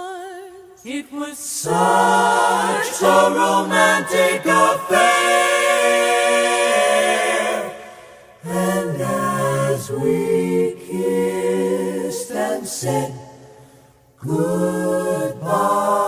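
Four-voice close-harmony a cappella vocal group singing jazz chords in a ballad, men's and women's voices together, with no instruments. The sung phrases fade away twice, about halfway and near the end, each time followed by a new chord swelling in.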